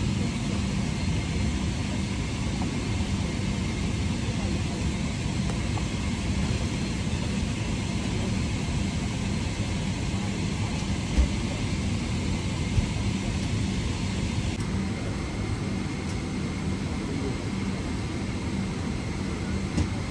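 Steady airliner cabin noise: a constant low rumble and hiss with a faint steady hum, and a couple of small clicks around the middle.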